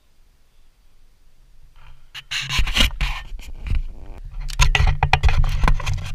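Scraping and rubbing of a handheld camera being handled and turned around. It starts about two seconds in after a quiet opening and grows denser.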